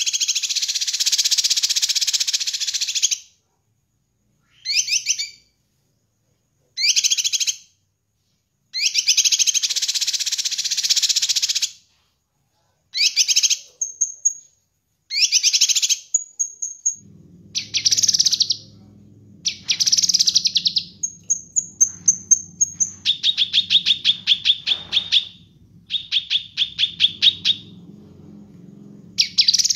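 Caged cucak kinoi, a leafbird, singing loud varied phrases with pauses between: long warbling runs, short chattering bursts, clear high whistled notes and rapid repeated trills. A low steady hum comes in behind the song a little past halfway.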